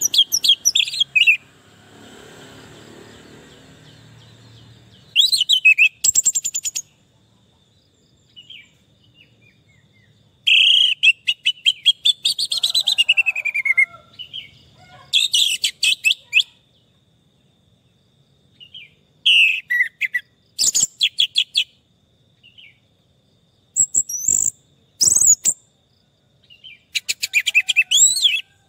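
Orange-headed thrush (anis merah) singing: about seven loud phrases of whistled sweeps and rapid trills, each a second or two long, separated by short pauses.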